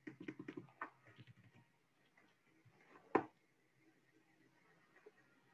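Clicking at a computer while operating meeting software: a quick run of about seven clicks in the first second and a half, then one louder click just after three seconds. A faint steady hum lies underneath.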